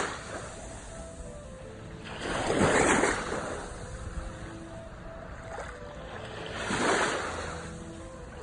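Sea waves washing onto a shore: two surges of surf rise and fade about four seconds apart, with a softer wash between them.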